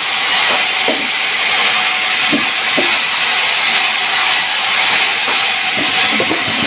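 Sawmill saw cutting through a sengon log, a loud steady hiss, with a few faint knocks underneath.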